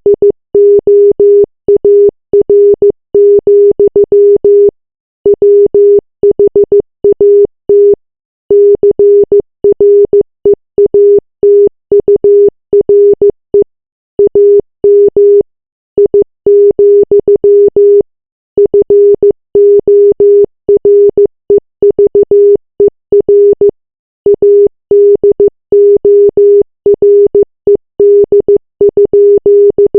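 Morse code sent as a single low-pitched beep, keyed on and off in quick short and long pulses, in runs of a few seconds separated by brief pauses.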